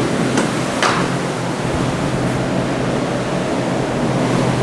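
Steady rush of wind on the microphone and rough sea washing past an ocean liner under way at speed, with two brief clicks about a second in.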